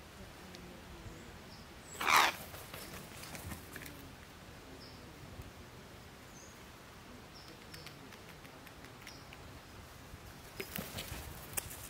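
A crow gives a single harsh caw about two seconds in. Near the end come a few faint clicks and taps as the crows pick at peanuts on the log.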